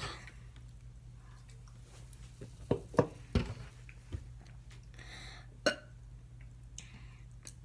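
Short, sharp mouth noises, clicks and gulps, as someone drinks soda to work up a burp. The loudest come in a quick cluster about three seconds in, with a few fainter ones later.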